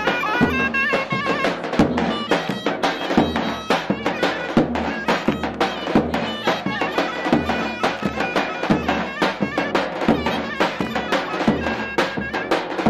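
Zurna playing a folk melody over regular strokes of a davul drum, played live.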